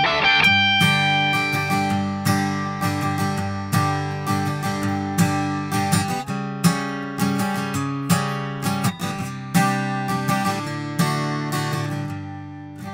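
Steel-string acoustic guitar strummed in chords, a strum every half second or so, the ringing slowly fading toward the end. It is close-miked with a small-diaphragm condenser.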